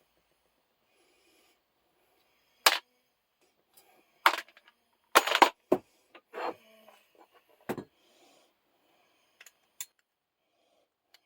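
Sharp metal clacks and knocks from the small steel parts of a Record No 0 bench vise being handled and set down during dismantling: about seven separate hits spread over several seconds, the loudest cluster near the middle.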